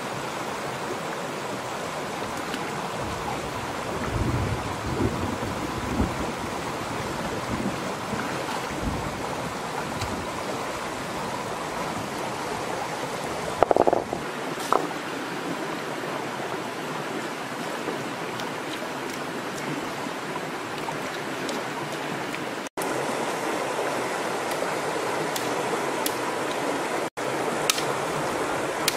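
Steady rushing of a shallow stream over rocks. A few low thumps come in the first third, and a short, louder noise about fourteen seconds in.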